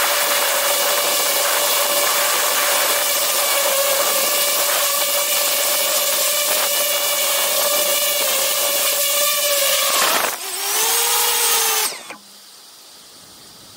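DJI FPV drone's motors and propellers whining steadily in a low hover. About ten seconds in, the whine dips and falls in pitch as the drone touches down, and the motors stop about two seconds later.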